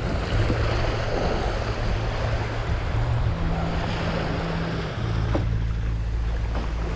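Small waves washing onto a sandy beach, with wind buffeting the microphone as a steady low rumble.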